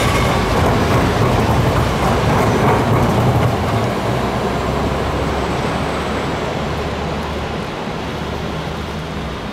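Articulated low-floor tram passing close by, a steady rumble of wheels on rail and running gear that fades gradually from about a third of the way in as it moves off.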